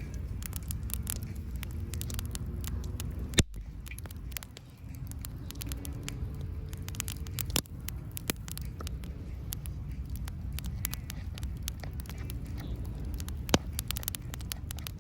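Wood campfire crackling with scattered small clicks and a few sharper pops, over a steady low rumble.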